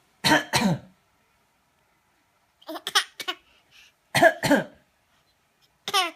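A man coughs, two coughs at a time, at the start and again about four seconds in. In between, and once near the end, a baby answers with short, higher-pitched cough-like sounds, imitating him.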